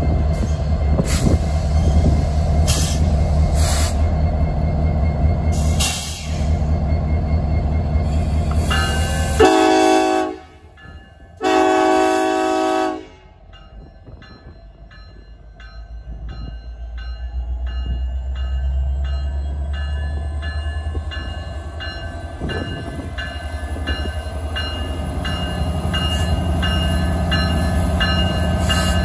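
An EMD SD70ACe diesel-electric locomotive's two-stroke V16 engine runs with a deep rumble, then its horn sounds two blasts, a short one about nine and a half seconds in and a longer one about two seconds later. After the horn the engine revs up, its sound building and a whine rising slowly in pitch as it starts the train.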